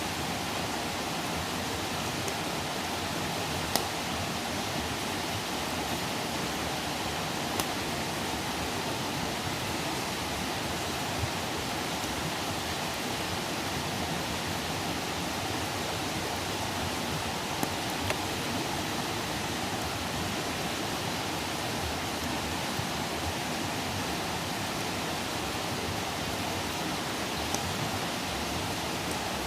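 Wood campfire burning with a steady hiss, broken by a handful of sharp pops a few seconds apart.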